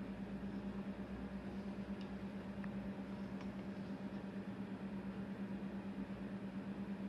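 Steady low hum from workbench equipment, with a few faint ticks about two to three and a half seconds in.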